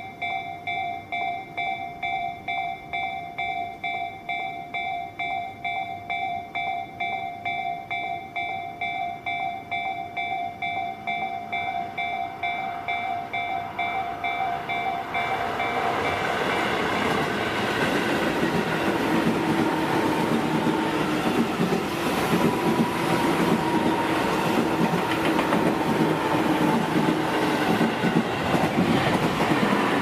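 Japanese level-crossing warning bell ringing in a steady ding-ding at about two strokes a second. From about twelve seconds in an electric commuter train approaches, its noise growing until about sixteen seconds in, when the passing train's wheels and motors are louder than the bell.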